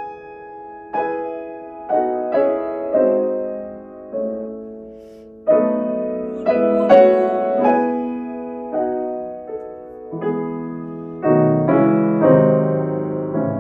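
Fazioli grand piano played solo: a slow piece of chords struck about once a second, each left to ring out, with deeper bass notes coming in near the end.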